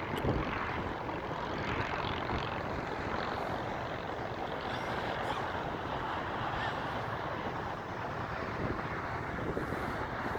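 Traxxas X-Maxx electric RC monster truck driving, a steady running noise from its motor and tyres with no clear whine standing out.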